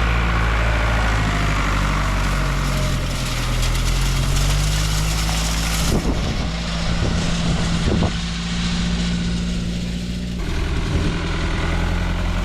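A vehicle engine running steadily, with abrupt changes in its sound about six, eight and ten seconds in.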